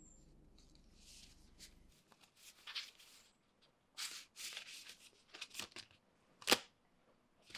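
Stack of paper index cards rustling as they are handled and leafed through, a string of short rustles with one sharper snap of paper near the end.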